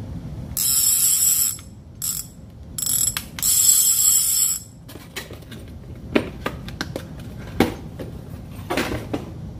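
Avet LX Raptor lever-drag reel's clicker buzzing as the spool is spun, in four high, rattling spurts over the first five seconds, the last and longest about a second. After that come scattered clicks and knocks from handling the reel.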